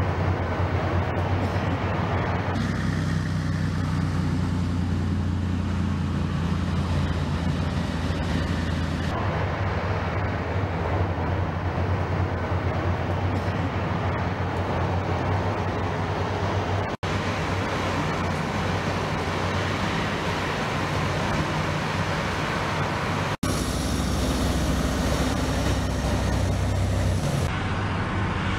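Diesel engines of heavy 8x8 military trucks running as a convoy drives past, a steady low rumble. The sound changes abruptly several times and drops out briefly twice.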